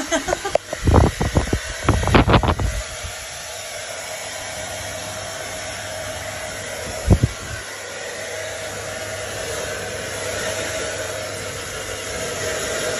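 Hand-held hair dryer blowing steadily on a wet cat's fur, its rushing sound getting a little louder toward the end. A run of sharp bumps and knocks sounds in the first three seconds, and one more about seven seconds in.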